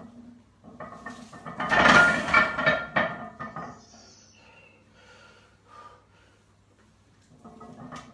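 Heavily loaded barbell set down onto a power rack's pins about two seconds in: a loud clank and clatter of bar and plates with brief ringing, followed by a few faint rattles.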